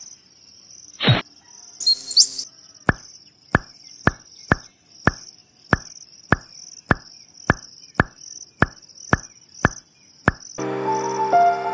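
A run of about fourteen short pop sound effects, roughly two a second, one for each miniature plastic plant popping into place in the sand, after a falling swoosh and a short bright sparkle. Background music comes in near the end.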